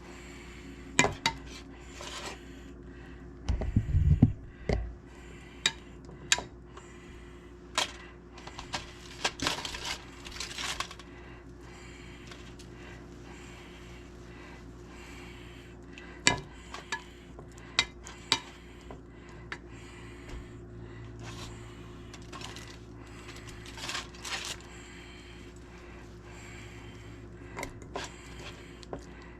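Kitchen clatter: scattered clinks and knocks of dishes and utensils, with a heavier bump about four seconds in. A faint steady hum sits underneath.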